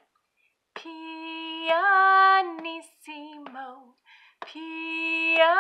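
A woman singing the word "pianissimo" quietly in long held notes, each stepping up in pitch partway through. Under the singing are soft taps on a disinfecting-wipes canister used as a drum, keeping a steady beat about once a second.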